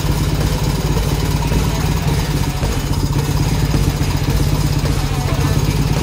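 Old forklift's engine running steadily with a fast, even pulse as the forklift is driven and its forks positioned.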